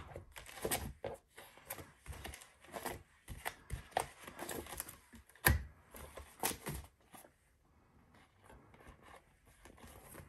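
Plastic sheet protectors and paper rustling and clicking as they are handled in a three-ring binder, with a sharp metallic snap about five and a half seconds in as the binder rings are opened.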